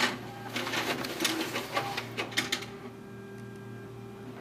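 Office multifunction copier's automatic document feeder pulling a page through to scan it for a fax: a quick run of clicks and clattering whirs for about two and a half seconds, then the machine settles into a steady hum.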